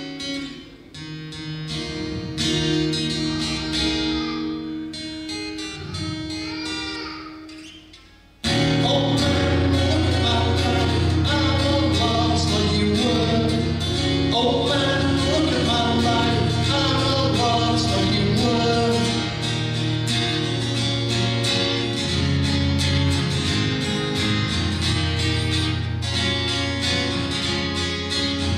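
Man singing to his own acoustic guitar. The opening is quieter, with separate picked notes; about eight seconds in the music jumps to loud and full and carries on steadily with guitar and voice.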